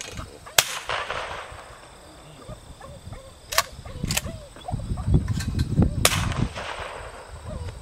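Shotgun shots, four in all: a loud report with a long echo about half a second in, two sharp cracks at about three and a half and four seconds, and another report with an echo about six seconds in. A low rumble on the microphone runs under the later shots.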